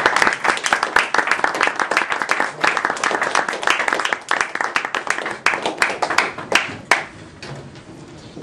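A small group of people clapping, dense and even at first and tailing off into a few last claps about seven seconds in.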